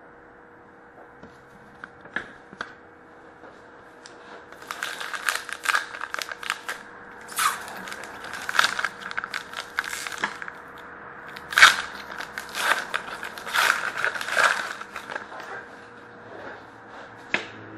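Foil wrapper of a hockey card pack crinkling and tearing in the hands, in repeated crackly spells from about four seconds in until near the end. Before that there are a few light clicks of cards being handled.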